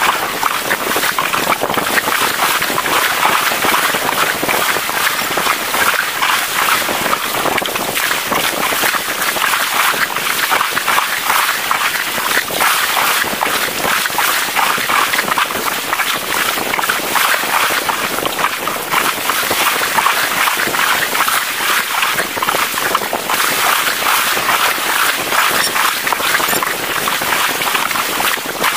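Sea waves washing and splashing over rocks at the shoreline: a steady, crackling rush of surf.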